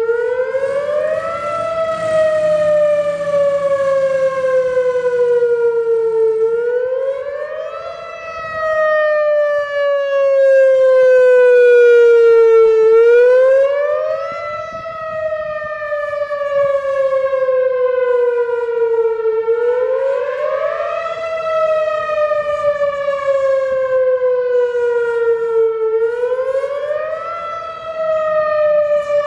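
Whelen WPS-4004 electronic outdoor warning siren sounding its wail, really loud: the pitch rises quickly and then falls slowly, repeating about every six and a half seconds, with the volume swelling and fading as it goes. This is the wail alert signal used for tornado warnings, sounded here as a test.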